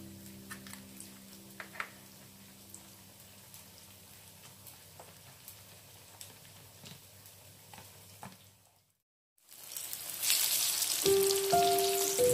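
A spoon clicking faintly as it stirs a batter in a plastic tub. After a short silence, hot oil sizzling steadily as battered tempeh slices fry in a pan.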